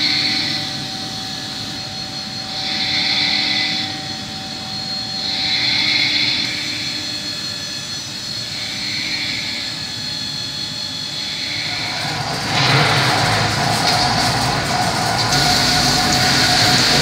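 Industrial machinery running, with a high whine that swells and fades about every three seconds. About twelve seconds in, a louder, rougher machine noise takes over.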